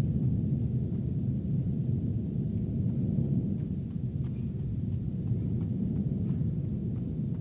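A steady low rumble with a few faint, scattered clicks.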